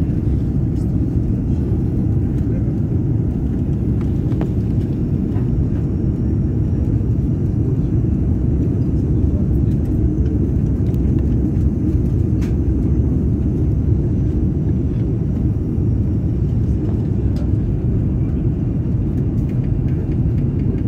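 Jet airliner cabin noise in flight: a steady, low rumble of engines and airflow heard from inside the passenger cabin.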